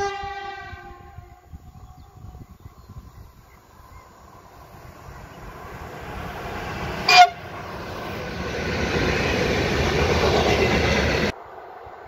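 Siemens Vectron (X4EC) electric locomotive hauling a freight train of covered wagons. The last of its horn blast fades in the first second or so. The running noise then grows as the train approaches, with a sharp, brief loud sound about seven seconds in. The passing train is loud and steady until the sound cuts off suddenly about eleven seconds in.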